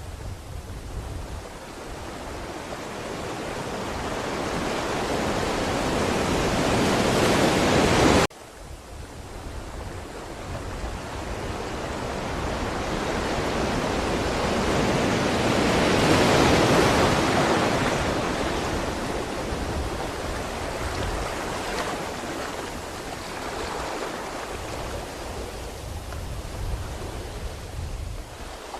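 Ocean waves surging on a shore: one swell builds and cuts off suddenly about eight seconds in, then another wave builds to a peak around the middle and slowly washes back.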